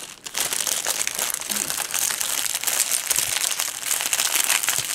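Clear plastic wrapping of a diamond painting kit crinkling continuously as hands handle and fold it.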